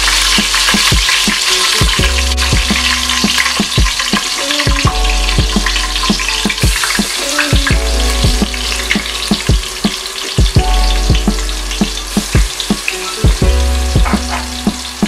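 Hot oil sizzling steadily in an aluminium pot as green chillies, fennel seeds and ginger-garlic paste fry in it, with background music underneath.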